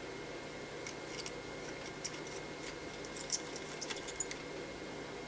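Soldering iron heating copper desoldering braid on circuit-board pads: faint, scattered crackles and ticks of flux sizzling as the braid soaks up the solder, thickest about three seconds in, over a steady faint hum.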